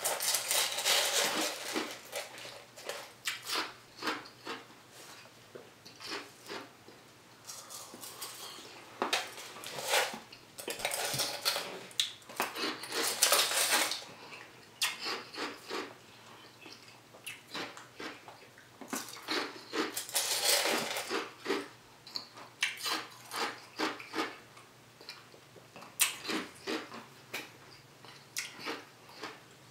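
Plastic spoon scraping and digging into frozen dessert in a paper cup, in spells of quick scraping with sparser clicks between.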